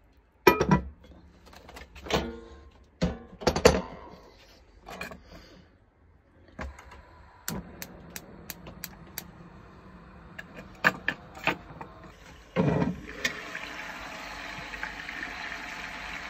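Heavy cast-iron Dutch oven lid clanking onto the pot several times, then later clanking again as it is lifted off. From there the pot is simmering with a steady hiss of steam and bubbling.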